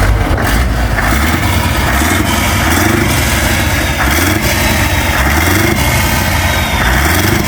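An engine running steadily, with a loud hiss over it.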